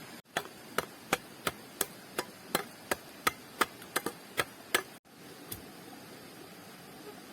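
A tool striking wood in a steady rhythm: about three sharp knocks a second for some four seconds, starting and stopping abruptly.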